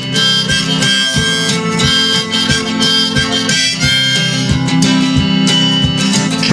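Instrumental break of a folk-style song: a harmonica plays held melody notes over steadily strummed acoustic guitar.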